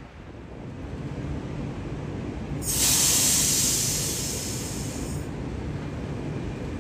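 A train rumbling slowly past, growing louder, with a loud burst of hissing compressed air from its air brakes starting suddenly about two and a half seconds in and lasting about two and a half seconds.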